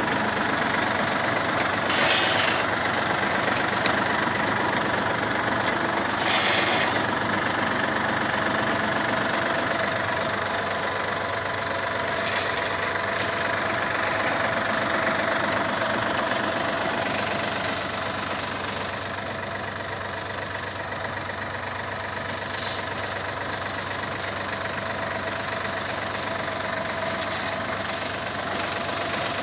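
New Holland tractor's diesel engine running steadily while it pulls and drives a PTO-powered potato digger, with the noise of the digger's elevator working the soil mixed in. A couple of short knocks come through a few seconds in, and the sound eases slightly past the middle.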